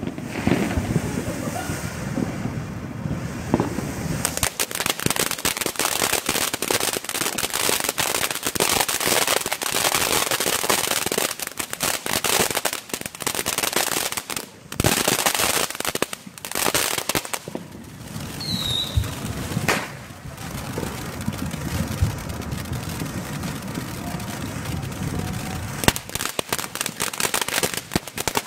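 TNT Pink Diamonds fountain firework burning: a hissing spray of sparks that turns, about four seconds in, into dense rapid crackling that carries on with a few brief lulls.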